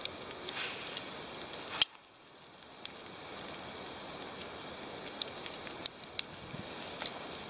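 Folding pocket knife being handled and its blade opened, with a few sharp clicks between about five and seven seconds in, over a steady outdoor hiss. A single loud click comes about two seconds in, after which the background briefly drops away.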